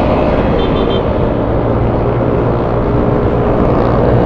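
Stock Yamaha Aerox scooter running steadily at road speed, a low engine hum mixed with wind and road noise.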